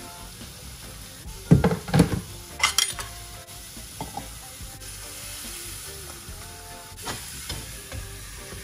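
Chops sizzling steadily in a hot frying pan. Two heavy knocks come about a second and a half in, followed by a quick run of metallic clinks. Lighter clicks of tongs and utensils against the pan follow later.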